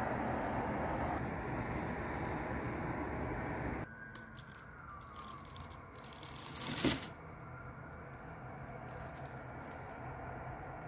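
Road traffic on a wet road: a steady hiss of tyres and rain that drops suddenly about four seconds in to a quieter background, with a short swelling rush near seven seconds.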